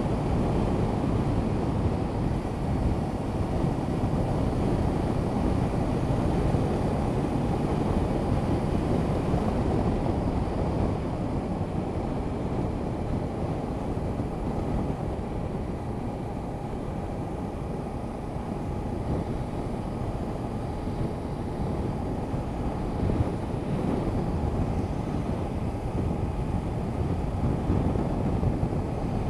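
A Honda CB500X's parallel-twin engine running at a steady cruise, under heavy wind rush on the action camera's microphone. The noise eases a little mid-way and builds again near the end.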